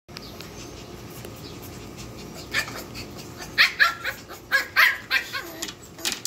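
American bully puppies yipping and whining in short, high calls, several in quick succession starting about two and a half seconds in.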